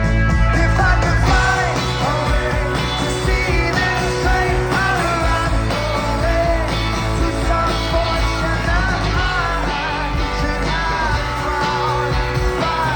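Live rock band playing, with a lead vocal singing over a heavy, steady bass and band backing.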